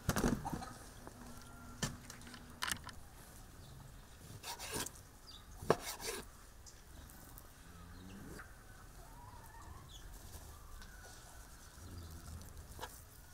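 Kitchen knife cutting lamb fat on a wooden cutting board: a few scattered knocks and scrapes as the blade goes through the fat and hits the board.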